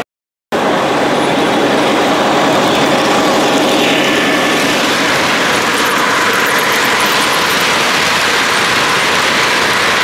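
Electric model trains running on three-rail track: a steady rolling rumble of metal wheels on the rails. It gets brighter about four seconds in as a train passes close. The sound starts after half a second of silence.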